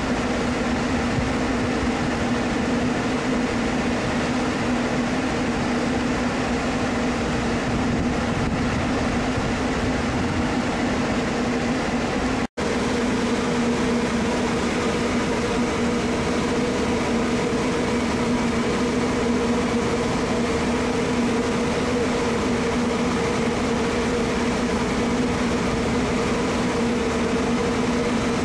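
Cruise ship's machinery hum: a steady, unchanging drone with a constant low tone under a wide rush of air. It cuts out for an instant about twelve seconds in.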